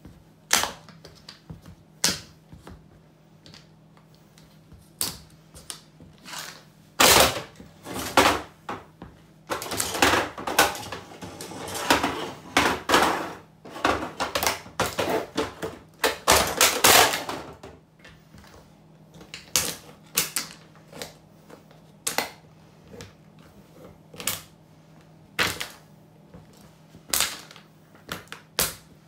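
Cofra rubber work boots stomping on a hard plastic toy on a tile floor: sharp plastic cracks, snaps and clicks. A dense run of crunching comes in the middle, with single spaced clicks and knocks before and after it.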